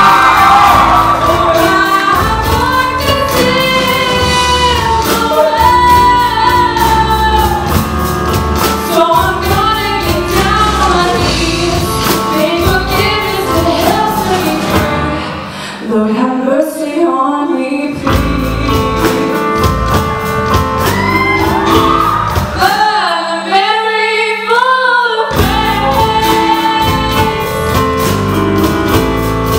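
A woman sings lead with a live band of drum kit, electric guitar and keyboard. Twice the band drops out and her voice carries almost alone, about halfway through and again near the end, before the band comes back in.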